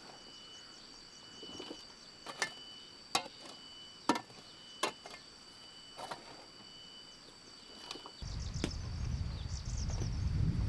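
Sharp knocks, about one a second at uneven intervals, over the steady shrill calls of insects. A little after eight seconds one insect tone drops out and a louder low rumbling noise takes over.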